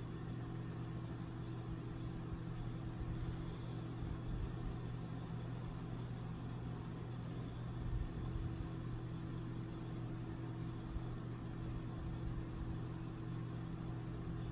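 A steady low mechanical hum with a faint hiss underneath.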